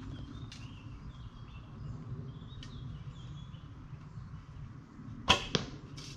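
A bow shot about five seconds in. The sharp snap of the string on release is followed about a quarter of a second later by a second, smaller impact: the arrow striking the 3D foam target. Faint bird chirps come beforehand.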